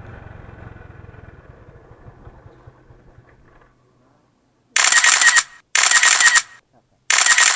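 Motorcycle engine running low and fading away over the first four seconds. Then come three loud, harsh buzzing bursts, each under a second long.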